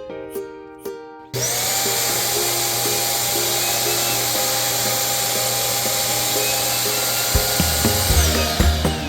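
A SwitchBot vacuum motor switches on abruptly about a second in and runs at a steady pitch, a loud rushing suction with a hum and a whine, then winds down near the end. Background music plays under it.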